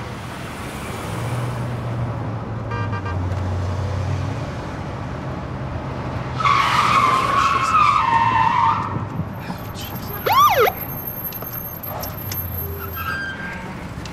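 Patrol car engine running, heard from inside the cabin. About halfway through, a police siren sounds for a couple of seconds, then gives one short whoop a little later.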